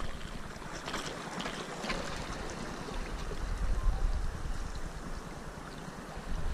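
Sea water lapping and washing against breakwater rocks, a steady noisy wash, with light wind on the microphone and a few faint clicks.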